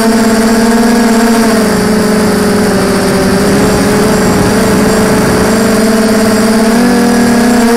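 Quadcopter's electric motors and propellers whining, picked up by its onboard camera: a steady pitched hum that drops about one and a half seconds in and climbs again near the end as the throttle changes.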